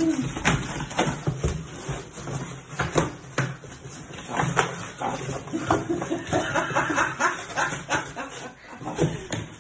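A dog biting, pawing and tugging at a cardboard box. The box knocks and scrapes, giving many short irregular knocks and rustles throughout.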